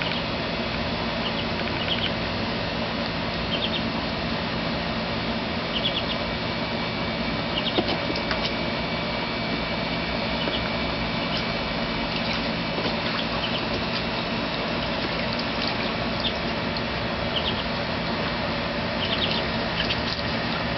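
Muscovy ducklings peeping in short runs of high peeps every second or two, with water splashing in a plastic tub as a larger duckling moves about in it, over a steady background hiss.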